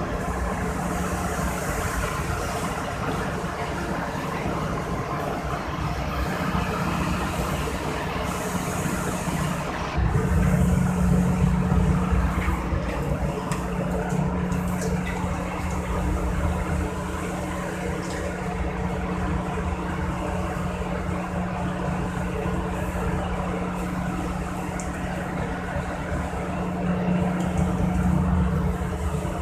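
Steady drone of a ship's engine machinery heard on the open deck: a constant low hum with rumble beneath, and a hiss of wind and sea over it. About ten seconds in, the hum and rumble grow louder.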